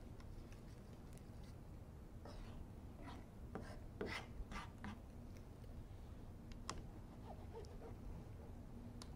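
Chef's knife slicing grilled tandoori chicken on a plastic cutting board: faint cuts and scrapes, most of them bunched together in the middle, with a couple of single strokes later, over a steady low hum.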